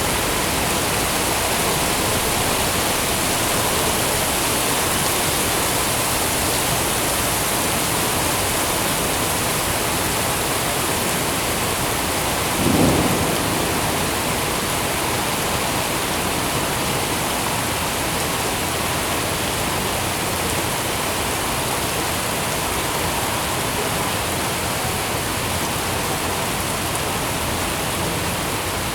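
Steady rain falling, an even hiss, with one brief low thump about halfway through.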